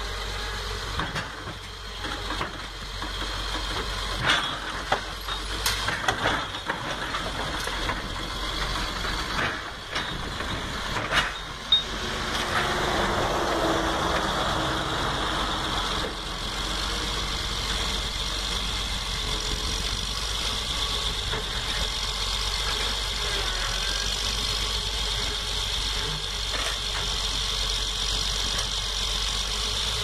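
A bulldozer's diesel engine running steadily, with scattered sharp metal clanks and knocks through the first twelve seconds or so.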